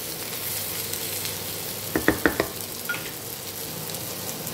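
Sliced onions and tomatoes sizzling in hot oil in a non-stick kadai while being stirred. About two seconds in, the spatula clinks against the pan a few times in quick succession.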